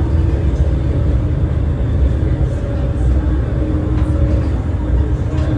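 Passenger ferry's engines droning steadily, heard inside the enclosed cabin: a deep, even rumble with a faint steady hum above it.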